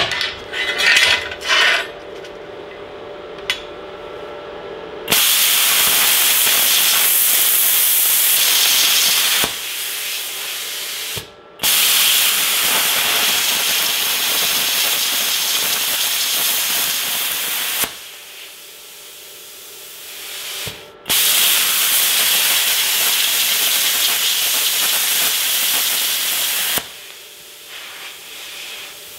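Hitbox HBC45 plasma cutter cutting 5 mm aluminium: three stretches of loud, steady hiss, each several seconds long, with a quieter hiss between them and after the last. It opens with a few knocks and clanks of metal being handled.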